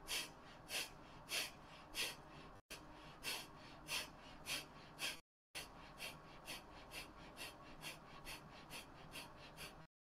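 Kapalabhati breathing: a run of short, forceful exhalations through the nose, at first about one and a half a second, then after a brief break around the middle, faster and lighter, about three a second.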